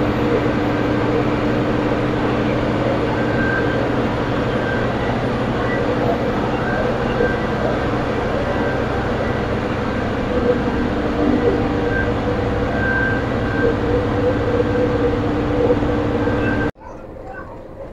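Steady droning hum of a train standing at the railway station, with a constant low rumble and a wash of noise beneath it. It cuts off abruptly about a second before the end.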